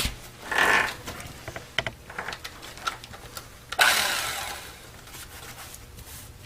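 Car seat cushion foam being cut down, with two loud rasping bursts about half a second and about four seconds in and small clicks between, over a steady low motor-like hum.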